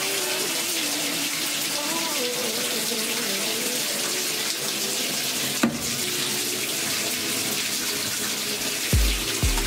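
Water pouring steadily into the tub of a top-loading washing machine as it fills, with one sharp click a little past halfway and a few low thumps near the end.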